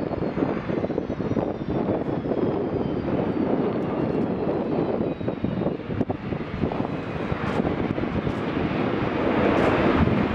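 Jet engines of a Qantas Boeing 737-800 (CFM56-7B turbofans) rolling out on the runway after landing: a steady rushing noise with a faint high whine that slowly falls in pitch.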